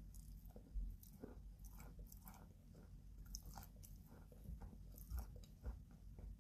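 A chunk of white chalk being bitten and chewed, with irregular dry crunches and crackles several times a second.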